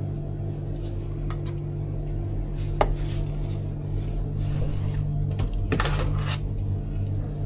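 Utensils and containers clinking and clattering, with a sharp knock about three seconds in and a quick cluster of clicks about six seconds in, over a steady low hum.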